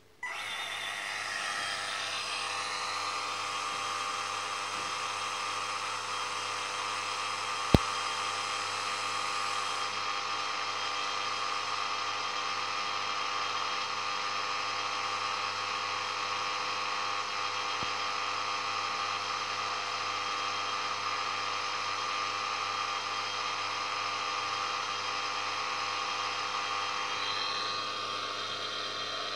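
Kinor 16CX-2M film camera motor starting up and running at a steady speed under PWM drive, its speed phase-locked to a crystal reference, a constant small-motor whir with fixed tones. A single sharp click about 8 seconds in.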